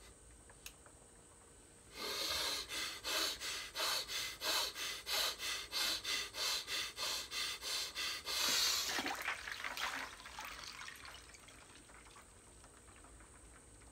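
Fast, forceful breathing, about three breaths a second for some six seconds, then a louder rush as the head plunges into a cooler of ice water, with sloshing and dripping that dies away over the next couple of seconds.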